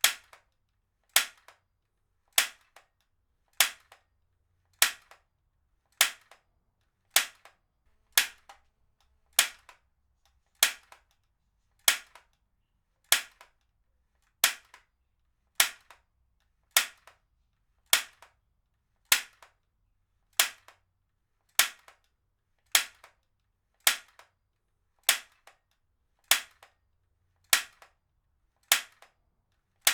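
Heavy-duty stapler firing over and over at a steady pace, one sharp snap about every 1.2 seconds, each followed by a faint second click.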